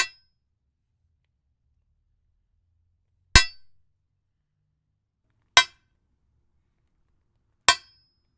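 Four sharp metallic clanks, a few seconds apart, each with a brief ringing tail; the second rings on a little longer.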